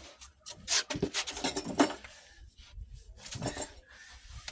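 Short clinks and scraping rubs of metal being handled: a tie-down strap wrapped around an oil filter and pulled tight, several sharp clicks in the first two seconds and a few more about three and a half seconds in.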